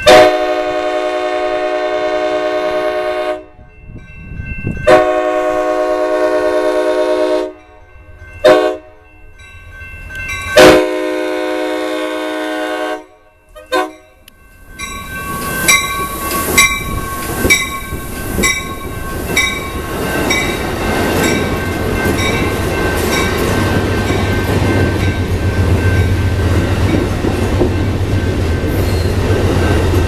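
Passenger train horn sounding the grade-crossing signal, long, long, short, long, from the leading cab car as the Amtrak San Joaquin approaches. Then the bi-level train runs past close by with a steady rushing noise and a fast, regular clicking of wheels. A low rumble grows toward the end.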